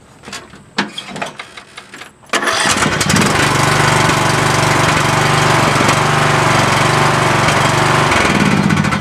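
A few light clicks, then about two seconds in a John Deere 100 series riding lawnmower's engine starts suddenly and runs steadily and loudly. It changes in pitch near the end.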